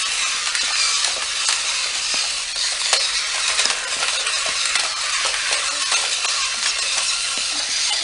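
Two battery-powered remote-control MMA fighter toys spinning on their plastic wheeled bases across a tile floor: a steady, rattling whir of small motors and wheels, with frequent small plastic clicks.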